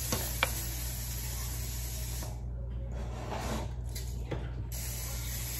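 A steady hiss over a low hum, with a couple of faint clicks in the first half second.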